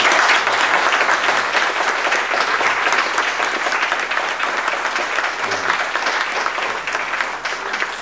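Audience applauding: dense, steady clapping that starts loud and slowly tapers off near the end.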